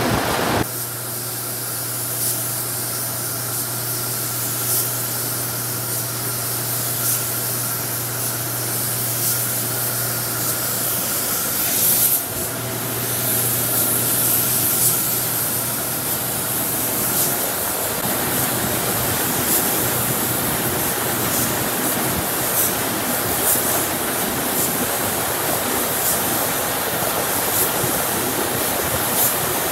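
Compressed-air paint spray gun hissing steadily as it sprays black primer onto a truck cab, with brief louder surges every two seconds or so. A steady low hum runs underneath and stops about 17 seconds in.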